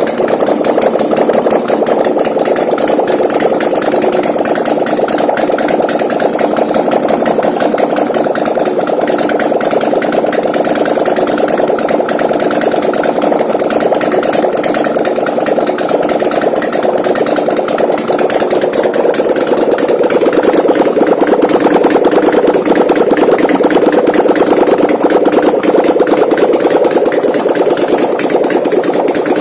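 An 800cc V-twin ATV engine, converted from fuel injection to a Harley-Davidson carburettor, running steadily. It gets a little louder about two-thirds of the way through.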